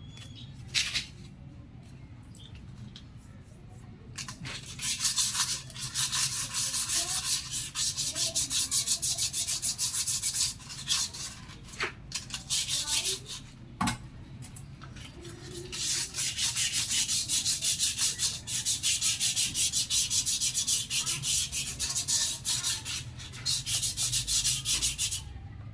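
Fast back-and-forth rubbing strokes, like sanding or scrubbing a surface, in two long spells with a short pause between them.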